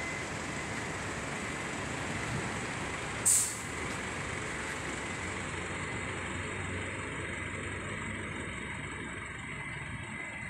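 Vehicle engines running slowly with steady rumble and road noise; about three seconds in comes one short, sharp hiss of air.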